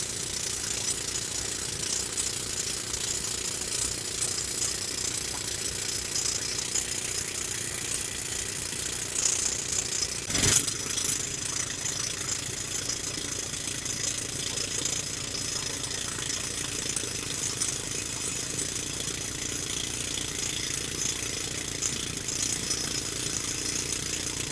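Pneumatic rock drill hammering a blast-free hole into rock, with an engine running steadily under it. A single sharp, loud knock comes about ten seconds in.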